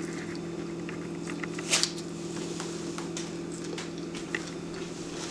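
Someone chewing crunchy pikliz, the Haitian pickled cabbage, carrot and pepper slaw: small scattered crunches and clicks, with one sharper crunch about two seconds in, over a steady low hum.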